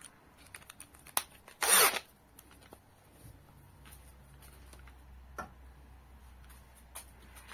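Handling clicks and rattles as a hex-shank tap drill bit is fitted into a cordless drill and the drill is set against a steel tube, with one brief, louder rustle about two seconds in. The drill is not yet running.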